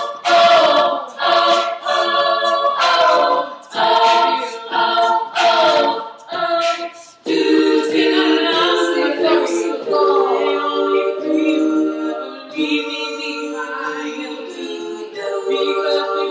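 All-female a cappella group singing in close harmony without instruments: short, punchy rhythmic phrases with sharp attacks for the first seven seconds or so, then long held chords.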